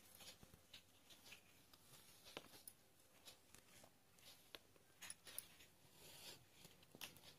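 Faint scratching rustles and scattered soft ticks of a needle and thread being pulled through cloth stretched in an embroidery hoop.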